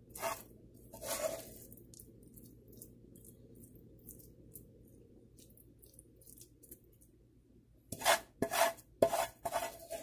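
Silicone spatula scraping thick, creamy filling out of a pan: a couple of scrapes in the first second or so, faint scattered scrapes through the middle, then a quick run of louder scrapes near the end.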